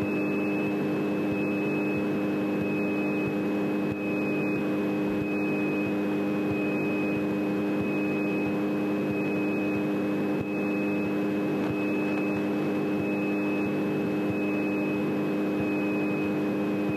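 Single-engine piston airplane engine idling steadily at low power while taxiing, heard from inside the cockpit. The engine's low, even drone is joined by a thin, steady high whine.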